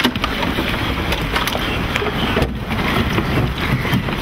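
A boat's engine running steadily, with water rushing along the hull and a scatter of short clicks and knocks.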